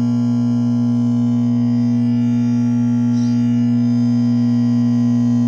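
Microwave oven giving off a loud, steady low hum with a buzzing edge, as if short-circuiting. It energises by itself with the door shut and stops when the door is opened, which the repairer traces to a relay stuck closed inside.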